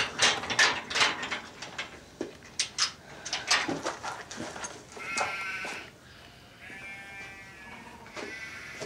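Sheep or goat bleating: three drawn-out bleats in the second half. Before them, a run of loud scuffling knocks and clicks.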